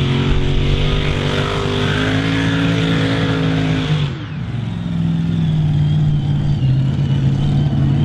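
Mini Modified pulling tractor's engine held at raised revs with a steady tone. About four seconds in the revs fall away and it settles to a steady lower run.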